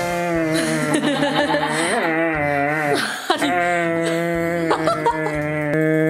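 Border collie making long, drawn-out crying moans: two held calls, the first breaking off about three seconds in and the second starting again right after.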